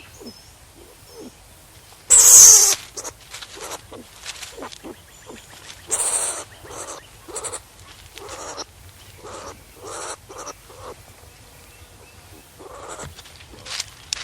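Skunk calling in a series of short squeaks and chirps, with a loud, harsh, noisy call about two seconds in and another around six seconds.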